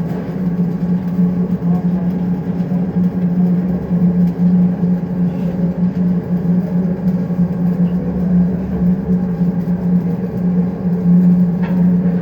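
Steady low electrical hum over a rushing noise from welding-shop machinery.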